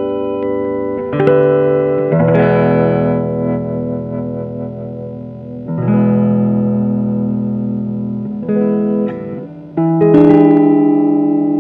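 1970s CG Winner neck-through electric guitar played through an amplifier: a series of chords, about five, each struck and left to ring, the last struck about ten seconds in and left to fade.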